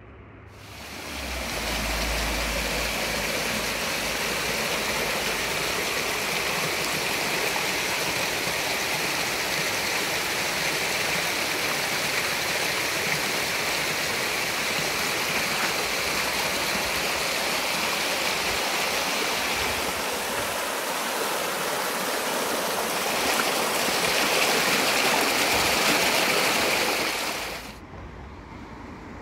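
Small mountain waterfall splashing down a rocky cascade: a steady rush of water that stops abruptly near the end.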